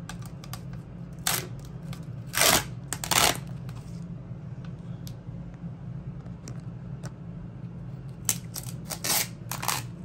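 Adhesive tape being peeled back off a lithium battery module's plastic frame in short tearing rips: a few spread over the first few seconds and a quick cluster near the end, over a steady low hum.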